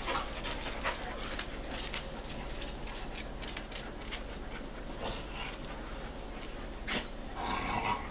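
Several dogs play-fighting at close range: a run of short scuffling and snapping noises, with a brief pitched dog vocalization near the end.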